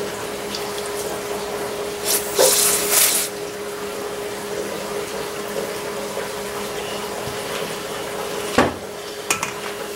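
Steady workshop hum and hiss, with a brief loud hissing noise about two seconds in and one sharp knock near the end as the cast-iron valve housing is handled.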